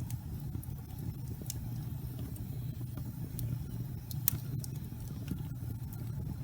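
Wood fire burning in a fireplace: a steady low rumble of flame with scattered sharp crackles and pops, one louder pop about four seconds in.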